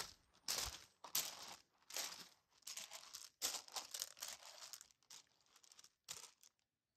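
Footsteps crunching on loose gravel, about two steps a second, stopping shortly before the end.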